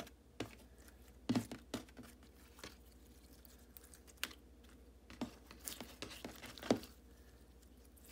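Cra-Z-Art Nickelodeon slime being kneaded and mixed by hand, giving irregular clicky, wet pops and squelches, with two busier spells of clicks.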